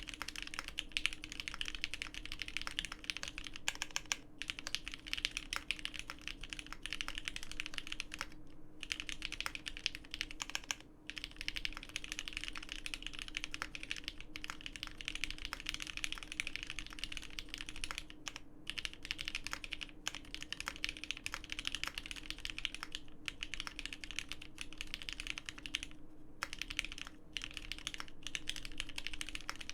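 Fast, continuous typing on a GEON F1-8K custom mechanical keyboard fitted with lubed vintage Cherry MX Black linear switches on 69 g springs and an FR4 gasket-mounted plate: a dense stream of key clacks broken by a few brief pauses.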